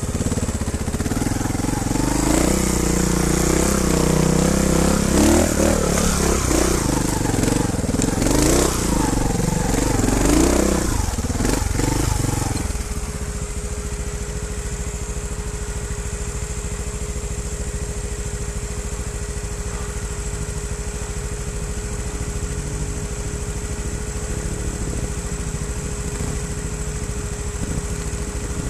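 Trial motorcycle engine revving up and down unevenly, then dropping after about twelve seconds to a steady idle with a constant hum.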